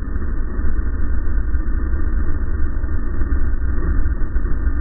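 Racing snowmobile running steadily at speed, engine and track noise mixed with heavy low wind rumble on the microphone.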